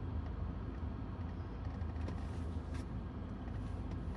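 Range Rover Evoque heard from inside the cabin, crawling at low speed: a steady low engine and drivetrain hum with faint tyre noise and a few light clicks.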